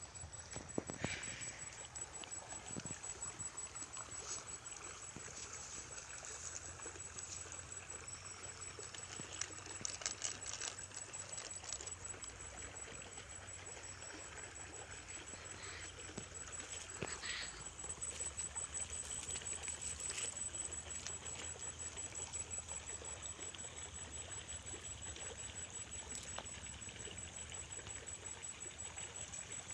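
Faint trickling water, with a few soft clicks and rustles from handling close by.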